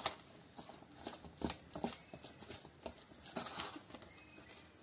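Wooden spoon stirring thick cake batter in a stainless steel bowl: faint, irregular soft knocks and scrapes of the spoon against the bowl, the loudest knock about one and a half seconds in.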